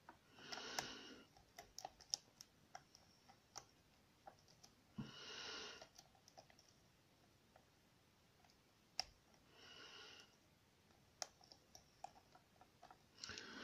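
Faint, scattered clicks and ticks of a pick working the pin stacks of a Ruko five-pin cylinder under tension. Three short breaths break in, at about one, five and ten seconds in.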